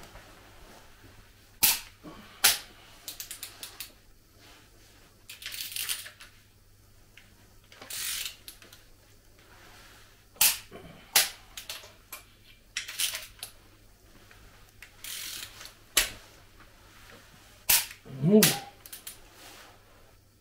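Hand tools and metal parts clinking and clanking on a Volvo D67C diesel engine block during cylinder head installation: a dozen or so scattered sharp clicks and knocks with a few short rasping sweeps in between.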